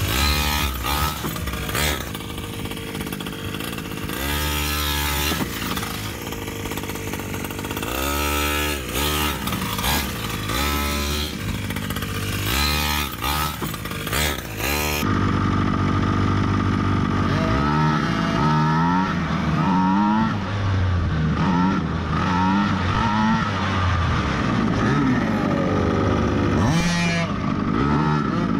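The Primal MT Raminator's 50cc two-stroke reed-valve gas engine revving up and down again and again as the truck drives. The pitch rises and falls many times, and the sound turns duller about halfway through.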